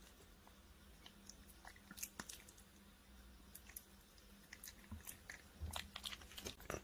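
A crab-eating macaque chewing and biting soft fruit: faint, scattered wet clicks and smacks, coming more often and a little louder near the end.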